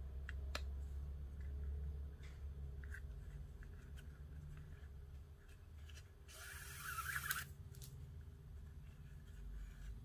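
550 nylon paracord being handled and worked into a knot: soft rubbing and sliding of cord with a few small ticks, and a longer swish about six seconds in as a strand is drawn through and pulled tight. A low steady hum runs underneath.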